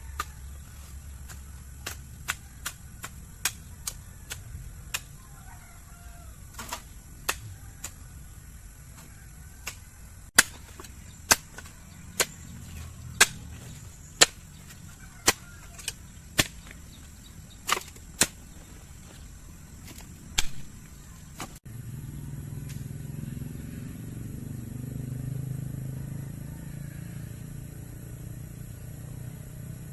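A blade chopping through garden growth: sharp chops, lighter and quicker at first, then heavier strokes about once a second. Near the end they give way abruptly to a steady low rumble.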